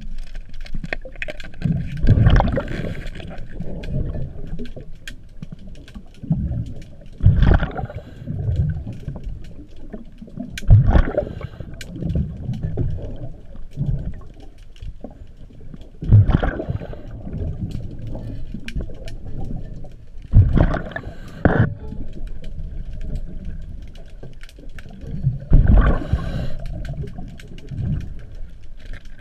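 A diver breathing through a regulator underwater: exhaled bubbles gurgle out in loud bursts about every four to five seconds, with quieter rushing between breaths and scattered small clicks.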